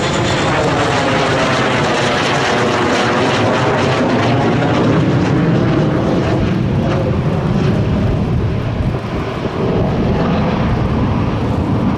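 FTC-2000 Shanying jet trainer's single turbojet engine, loud and continuous as the jet flies overhead and away. The noise has a sweeping, whooshing quality in the first few seconds and grows deeper and more rumbling in the later part.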